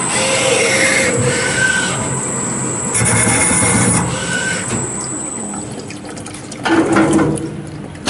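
CK0640A mini CNC lathe turning a metal part under a stream of coolant: splashing liquid over the machine's running noise, with a thin high steady whine. The whine stops about three-quarters of the way in, and a louder, short noisy burst follows near the end as the machine stops.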